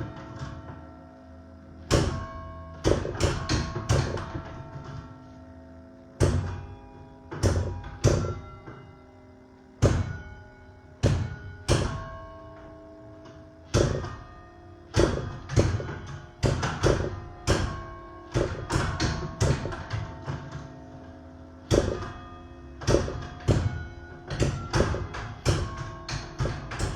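Church tower bells struck one note at a time to play a Christmas carol melody, in phrases with short pauses between them. Each note is a sharp strike whose ringing tones overlap the next.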